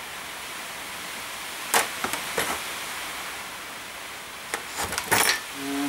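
A few light clicks and knocks of small parts or tools handled at a workbench, scattered over about five seconds, over a steady background hiss.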